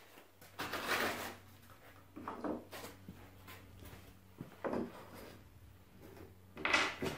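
Plywood bulkhead pieces handled and shifted by hand on a workbench: a few short wooden knocks and scrapes, the loudest about a second in and near the end.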